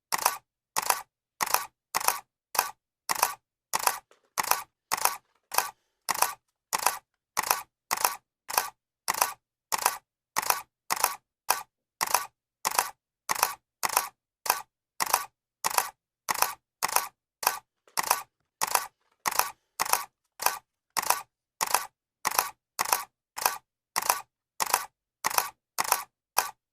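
Camera shutter clicking over and over at a steady pace, about one and a half clicks a second, each a quick double click.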